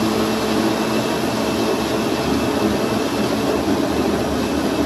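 Countertop blender running steadily at full speed, blending chunks of mango and other fruit into a smoothie.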